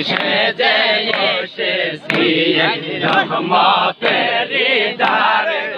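A crowd of men chanting a Sufi zikr (dhikr) together, many voices overlapping in loud, sung phrases.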